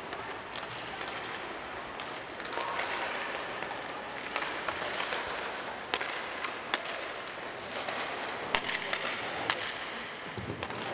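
Ice rink noise: hockey skates scraping and hissing on the ice, with several sharp clacks of sticks and pucks in the second half.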